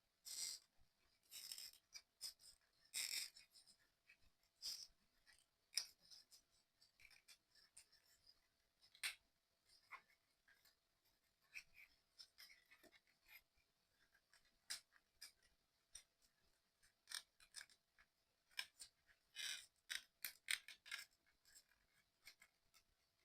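Small parts of a 3D excavator model kit being handled and fitted together: quiet scattered clicks and taps, with a few short scratchy bursts in the first few seconds and again about three-quarters of the way through.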